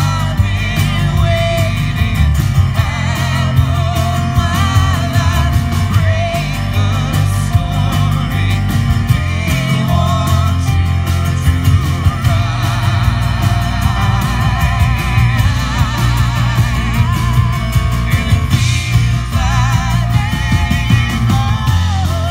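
A live rock band plays through a PA: drum kit, keyboard and acoustic guitar under a strong low end, with a woman singing over them. It is a steady full-band passage with no break.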